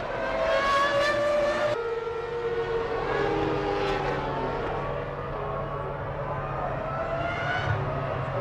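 1999 Formula One cars' 3-litre V10 engines at high revs, their pitch falling and then climbing again as they slow and accelerate. The sound changes abruptly about two seconds in.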